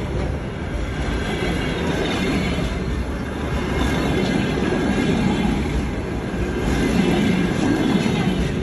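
Passenger train coaches rolling past a platform: steady rumble of steel wheels on the rails.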